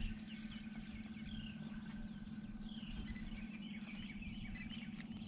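Small birds chirping and singing in short, repeated slurred notes, over a steady low hum.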